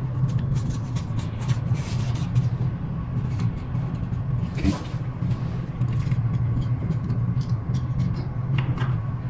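Steady low hum with scattered light clicks and taps of small parts being handled as the scooter is reassembled.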